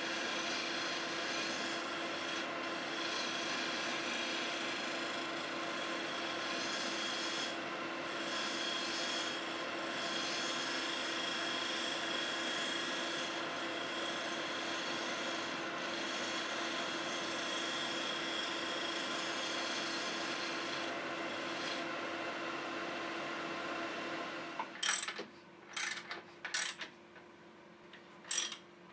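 Wood lathe turning a segmented wooden vase while a long-handled turning tool cuts into it: a steady rasping cutting noise over the lathe's hum. About 24 seconds in it cuts off, followed by several sharp knocks and clicks while a wooden steady rest is fitted around the vase.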